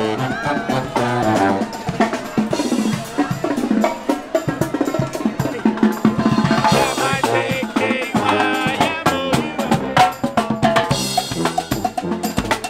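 Marching band playing: saxophones, trumpets and trombones carry a tune over a steady beat of marching drums, with bass drum hits.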